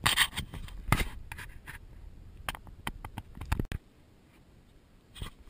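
Fingers handling the action camera right at its microphone: a string of irregular scratches and knocks on the housing that stops about four seconds in, with one more knock near the end.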